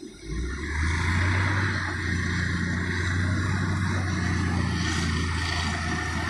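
Cat 980 wheel loader's diesel engine coming up in revs about half a second in, then running steadily under load with a low, even hum.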